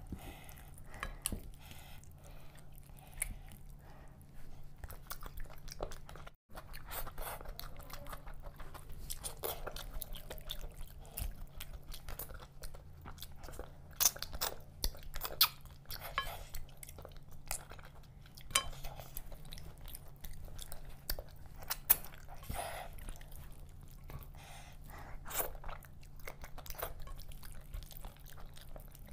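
Close-miked chewing and crunching of curried fish head eaten by hand, with frequent sharp crackles and clicks as fingers pull the head apart.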